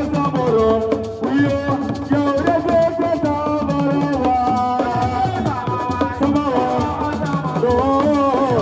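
Music: a singing voice over drums and shaker rattles, with a steady dense beat.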